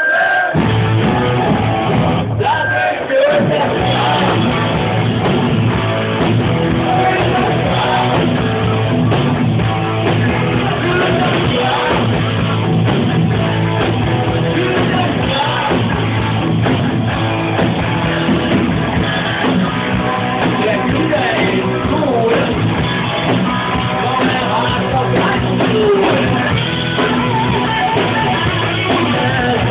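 Rock music with guitar and singing, loud and continuous.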